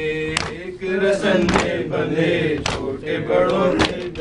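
Men chanting a noha, a Shia mourning lament, in a slow sung melody. Rhythmic chest-beating (matam) keeps time with it as even strikes about once a second, four in all.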